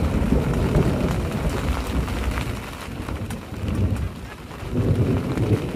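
Loud rolling thunder, a deep rumble that eases off midway and swells again near the end, with rain falling.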